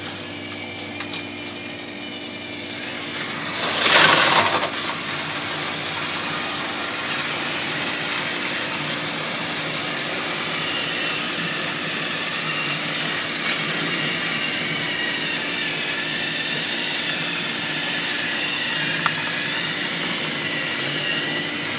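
Several battery-powered Thomas TrackMaster toy trains running on plastic track: a steady small-motor whirr with a thin high whine. A brief, louder burst of noise comes about four seconds in.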